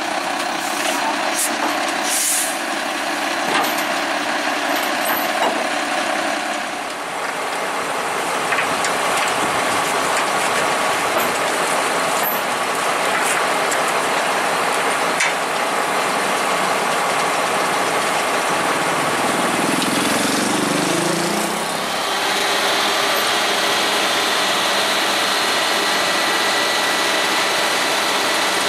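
Heavy truck's diesel engine idling steadily, with a few light clicks and knocks in the first few seconds.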